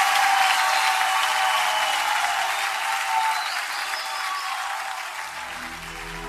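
Applause from a large audience, slowly dying away. Low, sustained musical notes come in about five seconds in as the next song begins.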